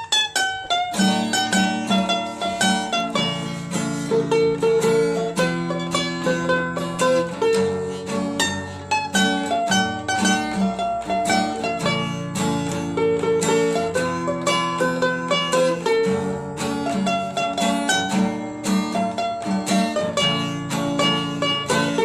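Upbeat ukulele music: a quick plucked melody over a steady repeating accompaniment, with many short notes a second.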